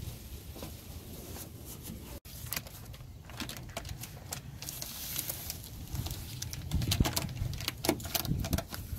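Plastic vapour-barrier sheet on a car's inner door panel crinkling and rustling as gloved hands press it back onto the sealant, with louder handling noise near the end.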